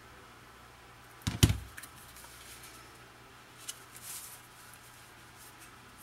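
Glue bottle and cardstock handled on a cutting mat: one dull knock about a second and a half in, then faint rustles and taps of paper being placed and pressed down.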